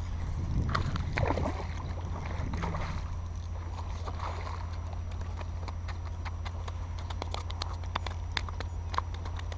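Fishing line being reeled in on a baitcasting reel and handled: rustling in the first few seconds, then a run of small irregular clicks, over a steady low rumble.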